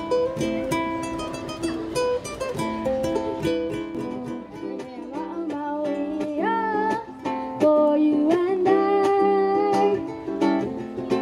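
Ukulele played solo with quick plucked notes. A voice sings a melody over it in the second half.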